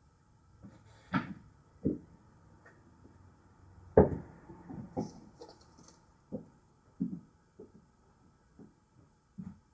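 Irregular light knocks and taps of tools and parts being picked up and set down on a workbench during hand soldering of an electronics kit, about a dozen in all, the loudest about four seconds in.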